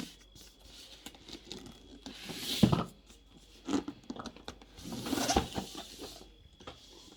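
Packaging of a boxed gift set being handled: cardboard and plastic rubbing and scraping, with scattered light knocks and two louder scrapes about two and a half and five seconds in.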